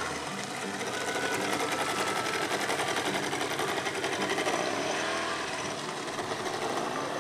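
Small outboard motor on a wooden boat running past with a fast, even buzz. It grows louder toward the middle and then fades as the boat moves away.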